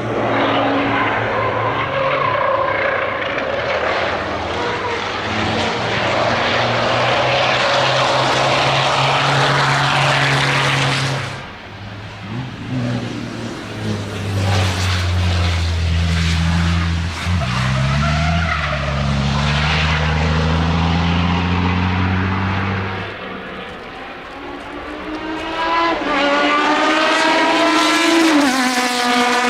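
Racing cars passing at speed on a circuit, one after another, their engines at high revs with gearshifts between passes. Near the end a car approaches with its engine revving up sharply through a gear change.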